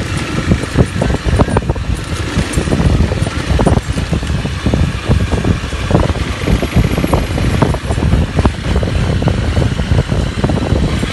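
Motorcycle engine running while riding, with heavy, uneven wind buffeting on the microphone.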